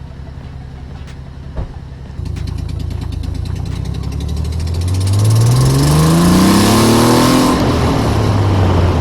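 Car engine pulling away and accelerating, its pitch climbing steadily for a few seconds with rising road and wind noise, then dropping at a gear change near the end and running on steadily.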